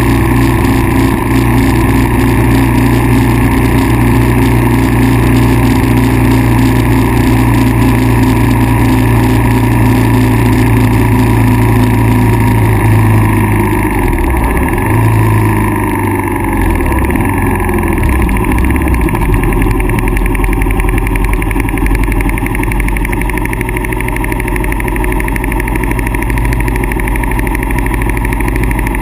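Kawasaki KLR650's single-cylinder four-stroke engine running steadily. Its engine note shifts about halfway through and then settles into a new steady pitch.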